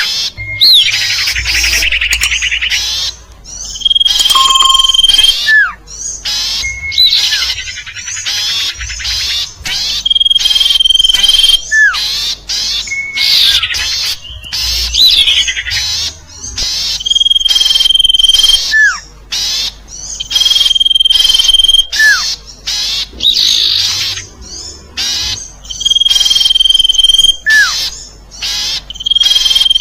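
Looped lure-call recording of the sirtu bird: a phrase repeating about every three seconds, made of a fast buzzy trill, a held high whistle and a short note that hooks downward, with many sharp clicks throughout.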